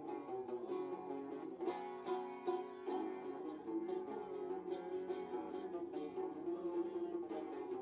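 Background music led by a plucked string instrument playing a steady run of quick picked notes.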